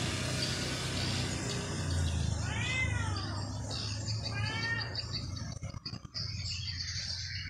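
Domestic cat meowing twice: a long meow that rises and falls in pitch about two seconds in, then a shorter one about four seconds in.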